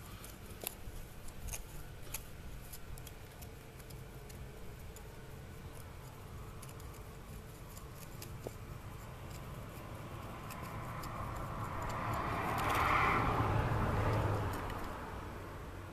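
Faint scratching and small clicks of a pointed screwdriver working soil in among the roots of an olive bonsai sapling. A broad rushing noise swells and fades near the end.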